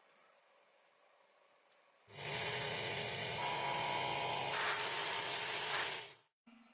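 A loud, steady spraying hiss starts about two seconds in, lasts about four seconds and cuts off suddenly.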